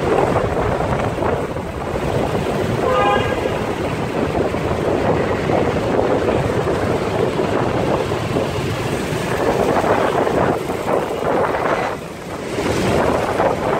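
Wind rushing over the microphone of a camera riding through dense motorcycle and car traffic, with the steady noise of the vehicles all around. A short beep sounds about three seconds in.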